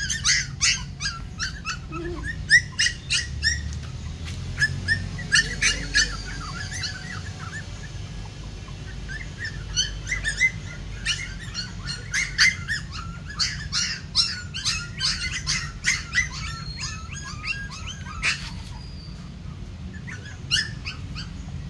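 A litter of young puppies yipping and squeaking: many short, high-pitched calls in quick runs, with short lulls about eight and nineteen seconds in.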